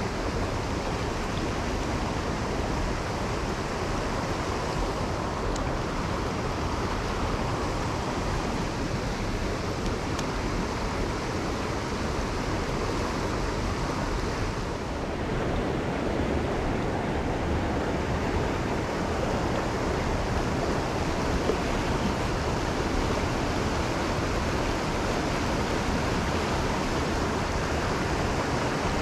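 Steady rush of flowing stream water, with a brief dip in level about halfway through.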